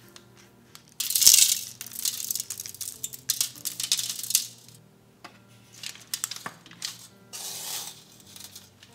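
Salt sprinkled by hand over halved butternut squash on a foil-lined baking sheet: a gritty crackling patter of falling grains in several bursts, starting about a second in, with soft background music underneath.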